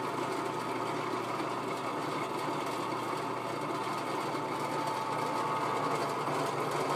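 Drill press motor running steadily with an even whine.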